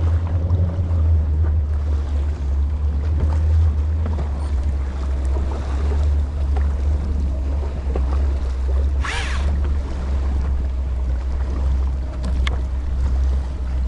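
Steady low rumble of a boat at sea, with a brief hissing rush about nine seconds in and a sharp click near the end.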